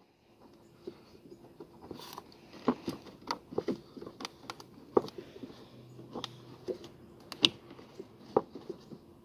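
Hard plastic air filter housing of an Opel Vectra C being worked into its seat in the engine bay: about a dozen irregular plastic clicks and knocks, with light scraping and creaking, as it is pushed and shifted by hand.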